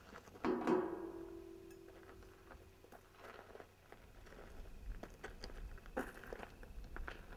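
A sudden ringing tone about half a second in that fades over about three seconds, then scattered light crunching footsteps on gravel.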